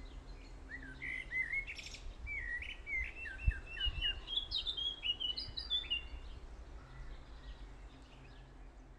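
A songbird singing outdoors: a run of short chirps and whistled notes that step higher in pitch over several seconds, then fade. A low steady rumble runs underneath, with one soft low thump midway.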